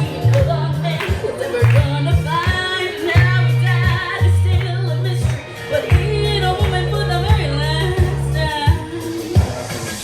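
A young girl singing a country song over an accompaniment with bass and drums. Her sung melody line bends and moves over a steady beat.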